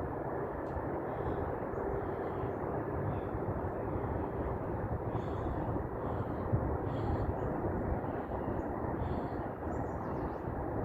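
Steady low rumble of distant engine noise, with short bird calls coming and going above it.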